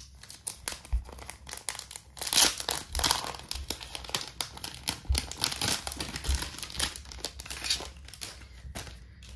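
Thin clear plastic photocard sleeve crinkling and crackling in irregular bursts as hands open it and slide out a stack of cards, loudest about two and a half seconds in.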